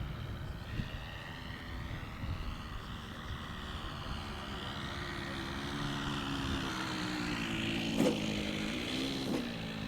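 Ben Buckle Super 60 radio-controlled model aeroplane's motor buzzing in flight, its pitch drifting slowly up and down and getting a little louder towards the end as it passes, with wind rumble on the microphone.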